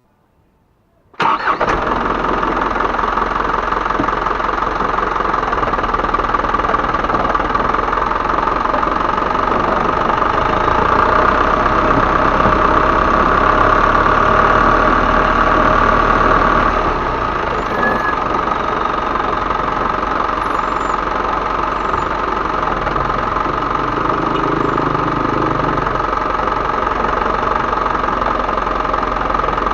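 Isuzu Elf HD truck's 125 PS turbo diesel engine running, coming in abruptly about a second in, with a steady high whistle over the diesel clatter. It grows a little louder for several seconds in the middle, then settles back to an even idle.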